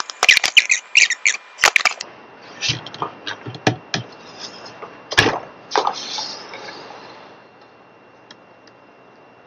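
Sharp clicks, taps and knocks of a small metal pick tool against a guitar headstock's tuner holes and bushings, mixed with the handling of the wooden neck. The clicks come thick and fast for the first two seconds, then turn into scattered single taps that die away after about six seconds.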